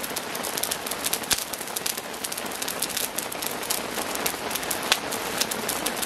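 Steady rain falling, with a dense patter of individual drops.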